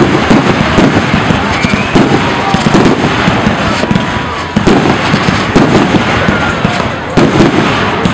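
Aerial fireworks display heard through a camera's built-in microphone: a rapid barrage of shell bursts, heavy booms about once a second over dense crackling.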